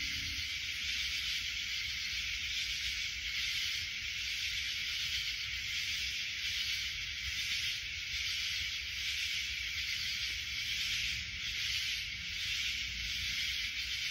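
A steady high-pitched hiss with a faint low rumble beneath it, unchanging throughout.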